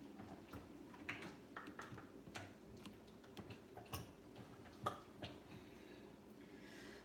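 Faint, irregular clicks and scrapes of a spatula working thick chocolate avocado mousse against the sides of a plastic blender jar, a little louder near 4 and 5 seconds.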